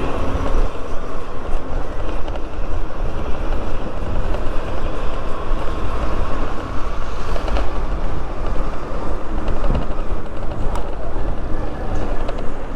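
Steady, loud rushing noise of wind and traffic while riding along a street, heaviest in the low end, with no distinct engine note standing out.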